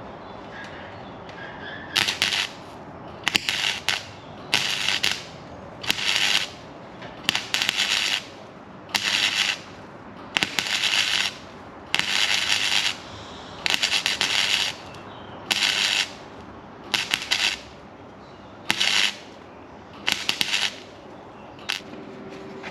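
Welding on a vehicle's rusted sill, done as a series of short stitch welds: about fourteen crackling bursts, each around a second long, with brief pauses between them.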